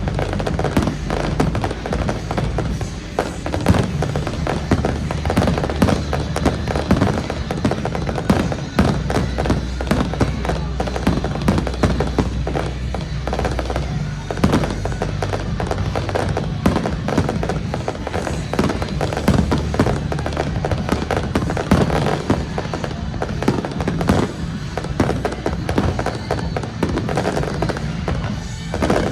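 Fireworks bursting in quick, near-continuous succession, with many sharp cracks and bangs, over loud accompanying music with steady bass notes.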